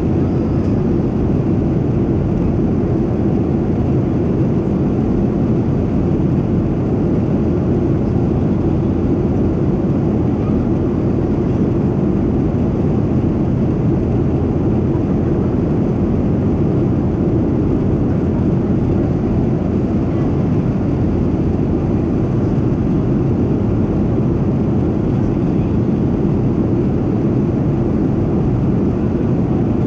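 Steady cabin noise of a Boeing 737-700 in flight, heard from a window seat over the wing: a deep, even drone of its CFM56-7B turbofan engines and the airflow past the fuselage.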